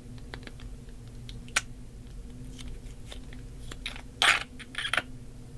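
Squishy mesh stress ball squeezed and worked in the hand: scattered soft clicks and a few short crackling squishes, the loudest about four seconds in, over a faint steady hum.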